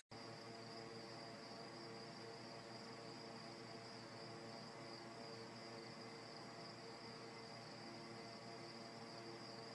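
Faint, steady high-pitched trill or whine with a low hum beneath it, unchanging throughout; no sudden sounds.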